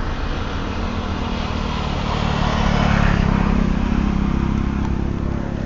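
A motor vehicle passes close by, its engine and tyre noise swelling to a peak about three seconds in and then fading.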